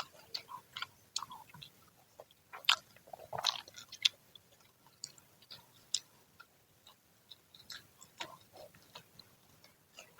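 Close-up chewing and biting of crisp, freshly fried Indonesian fritters (gorengan): irregular crunches, the loudest about three seconds in.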